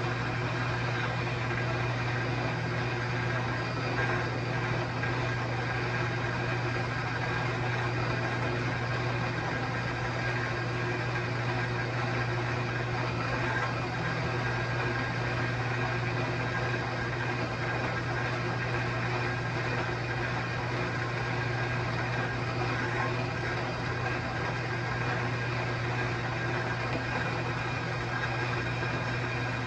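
Shop saw running steadily through a long cut in stock, with a constant low hum and no change in speed.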